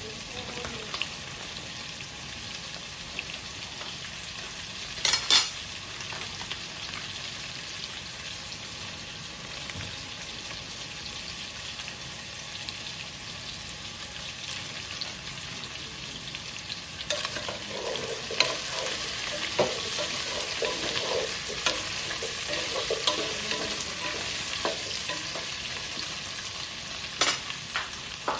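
Food sizzling steadily in a frying pan while it is stirred, with a sharp knock of the utensil against the pan about five seconds in and again near the end. The stirring and scraping grow busier from a little past halfway.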